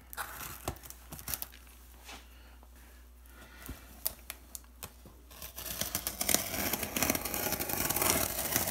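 Plastic packing film and tape on a cardboard box being scraped and slit with a ballpoint pen tip. For the first half there are scattered light taps and scratches. After that comes steady crinkling and tearing that grows louder.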